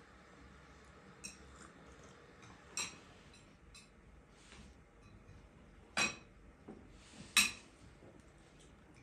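A few sharp clinks and taps of kitchen utensils against dishes, over a quiet background. The two loudest come about six and seven and a half seconds in.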